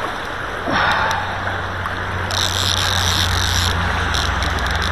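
Steady rush of river current, with a brief high-pitched buzz about midway.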